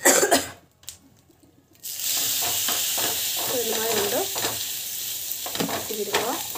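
Oil sizzling steadily on a hot iron tava as finger millet roti dough is patted flat on it by hand. The sizzle starts about two seconds in, after a short noise and a second of near silence.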